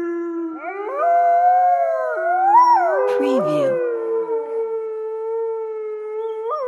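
A wolf pack howling: several long howls overlap, some held at a steady pitch and others rising and falling.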